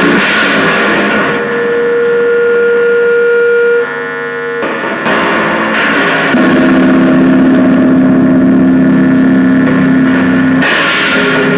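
Home-built spring noise instrument: a small electric motor held against stretched metal springs, picked up by pickups and amplified, giving loud buzzing drones over hiss. The drones jump to new pitches every few seconds, with a lower, louder drone settling in about halfway through.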